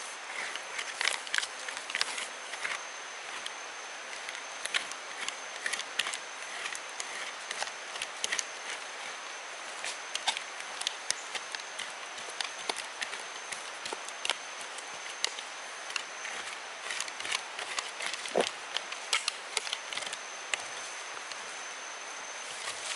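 Tropical forest ambience: a steady hiss with a continuous high-pitched insect tone, over scattered light clicks and crackles of twigs and leaf litter, with one louder knock near the end.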